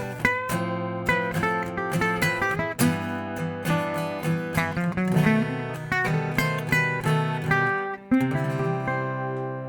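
Acoustic guitar playing an instrumental passage of picked notes and strummed chords. A final chord is struck about eight seconds in and left to ring, fading away.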